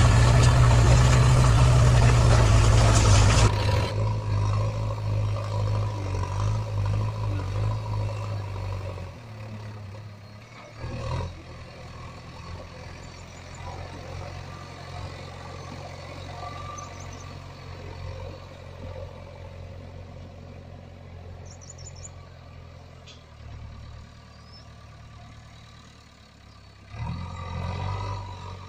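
A vehicle engine idling with a steady low hum. It is loud and rough for the first few seconds, then settles lower and quieter. There is a single knock about eleven seconds in and a brief swell near the end.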